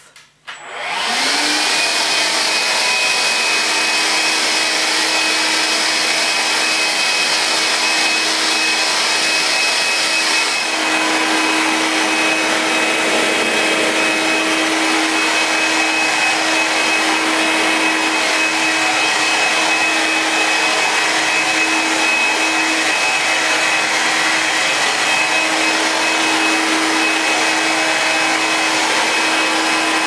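Vax Air Cordless battery-powered upright vacuum cleaner switching on and running steadily while vacuuming a hard tiled floor. Its motor whine rises in pitch as it spins up, then holds over a loud rush of suction air. A higher hiss drops away about ten seconds in.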